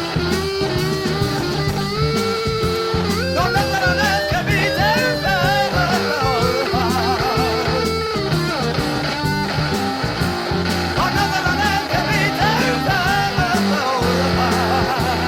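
Psychedelic rock recording: an electric guitar plays a wavering, bending lead line over bass and drums, in a passage with no sung lyrics.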